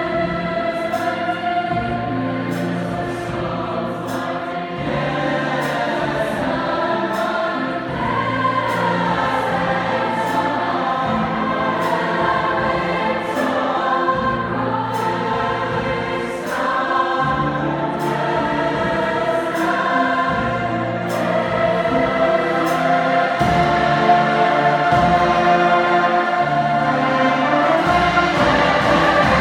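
Large choir singing in harmony, accompanied by a jazz band with a moving bass line and cymbal strokes keeping the beat.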